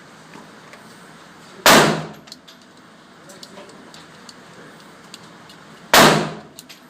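Two shots from a Ruger LC9 9mm compact pistol, about four seconds apart, each a sharp loud bang with a short fading echo.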